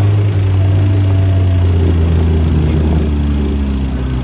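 Off-road 4x4's engine running steadily at a low, loud note, its pitch drifting slightly up and down.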